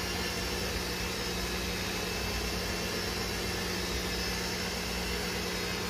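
Electric mixer running steadily on low speed, its beaters mixing cream cheese and sweetened condensed milk until smooth.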